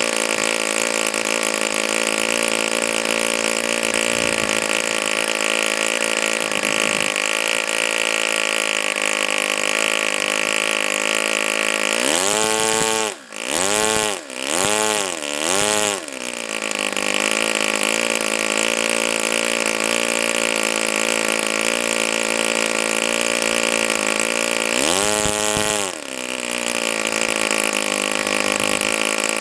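YS FZ63S four-stroke glow engine running unmuffled at high speed, turning an APC 11x7 propeller. About twelve seconds in its speed drops and picks back up three times in quick succession, and it dips and recovers once more near the end.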